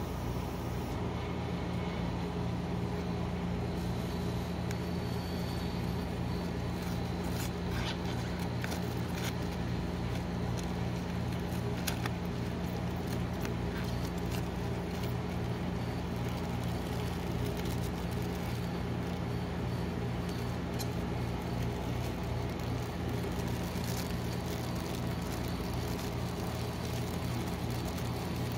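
Steady hum of a rolled-ice-cream cold plate's refrigeration compressor, with scattered light crinkles and taps as plastic snack wrappers and cardboard boxes are handled.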